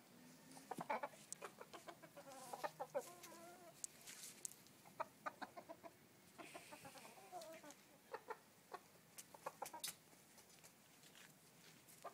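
Chickens clucking in short, bent calls, with a scatter of sharp clicks between them.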